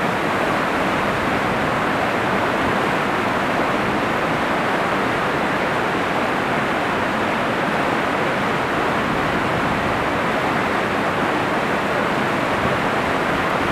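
Fast, swollen river running through whitewater rapids: a steady, loud rush of water.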